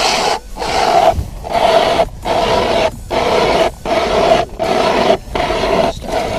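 Large hand ice saw cutting through lake ice between auger holes, rasping in steady back-and-forth strokes, roughly one and a half a second.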